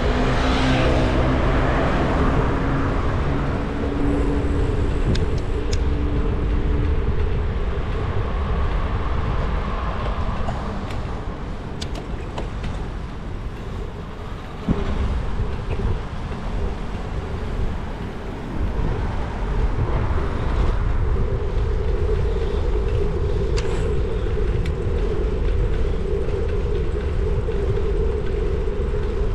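Wind buffeting and road noise on a moving bicycle's camera, with a motor scooter's engine passing in the first few seconds. About halfway through there is a short quieter stretch and a single click.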